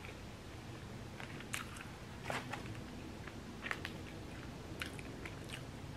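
A person chewing a bite of a garlic bagel sandwich close to the microphone, with a few short crunches and mouth clicks scattered through the chewing.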